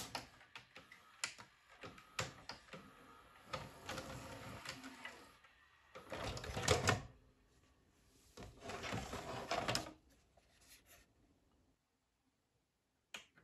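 Akai VS-G205EDG VCR's tape mechanism clicking and whirring in several bursts after being stopped, the loudest about six seconds in, then going quiet, with one sharp click near the end.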